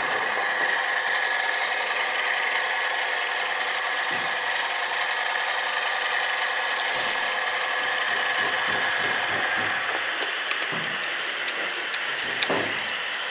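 H0 three-rail model train running along the track, heard from a camera riding on it: a steady mechanical whir with rattling and scattered clicks from the wheels over the rails. The whir fades about ten seconds in, and a sharper click comes near the end.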